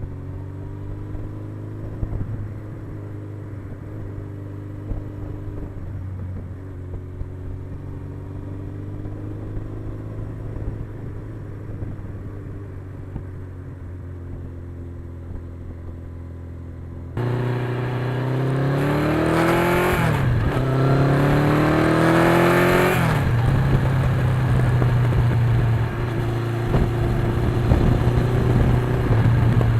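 1982 Suzuki GS1100E's air-cooled inline-four engine running at a steady pitch. About halfway through the sound abruptly gets louder and the engine revs up and down twice, then settles back to a steady pitch.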